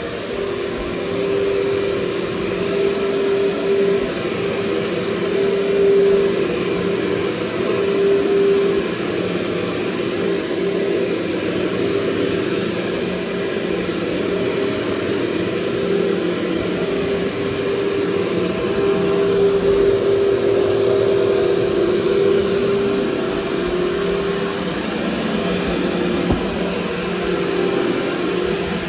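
Workhorse canister vacuum cleaner running steadily while vacuuming carpet, its motor hum wavering slightly in pitch and level as the nozzle is worked over the carpet.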